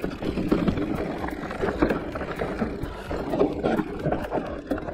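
Giant Reign E+ electric mountain bike riding down a dirt forest singletrack: knobby tyres rolling over soil and roots, with irregular knocks and rattles from the bike and a low rumble underneath.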